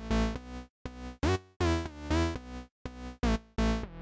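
Intro music: a run of short, choppy synthesizer chords, a few each second, broken by brief cuts to silence.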